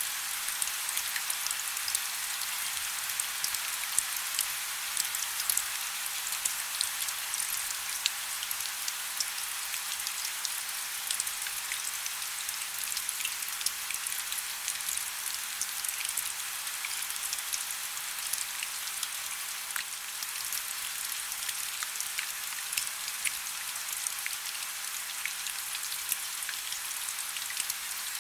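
Heavy rain falling steadily: a dense, bright hiss of drops with many small, sharp individual drop impacts and little low rumble.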